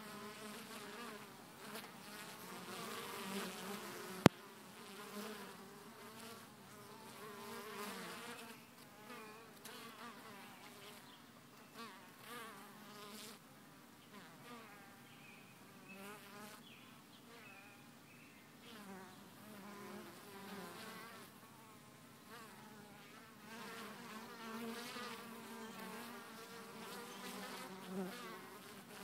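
Honeybees buzzing at a hive entrance as foragers fly in and out, the wing hum wavering in pitch and swelling and fading as single bees pass close. A single sharp click about four seconds in.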